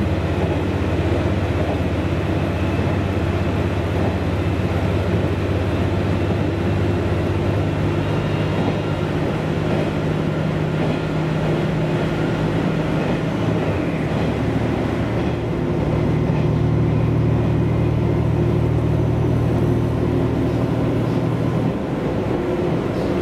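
Steady running noise of a diesel railcar under way, heard inside the car: a low engine drone whose note shifts a couple of times, under a constant rumble of wheels on the track.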